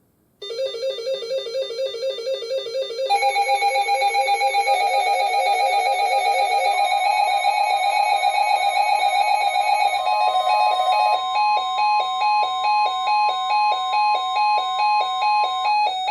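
Synthesized electronic music with bell-like tones in a steady pulsing rhythm. It starts about half a second in, more layers join about three seconds in, and it changes to short repeated notes about eleven seconds in.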